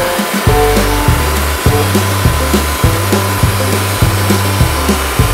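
Background music with a steady beat and a moving bass line, over the steady running of a portable bandsaw mill's gasoline engine.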